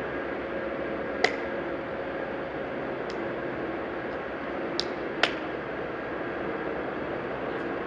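Steady street background noise with a faint hum, broken by three short sharp clicks, the loudest about a second in and two more close together about five seconds in.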